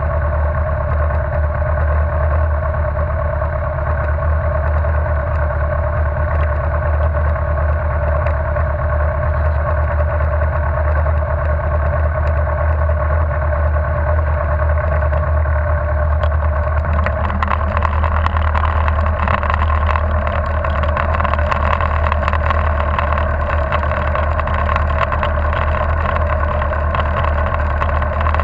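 Motorcycle engine idling steadily, close to the microphone. From about 17 seconds in, a hiss with fine crackling is added over the engine.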